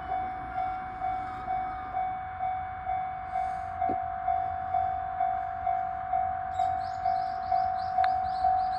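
Japanese level-crossing warning bell ringing: a single steady tone struck about twice a second, each strike dying away before the next. About two-thirds of the way in, a faster, higher-pitched ticking joins it.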